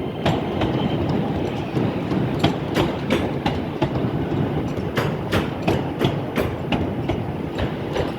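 Class 323 electric multiple unit departing: a steady rumble with an irregular series of sharp clacks as its wheels run over rail joints and points.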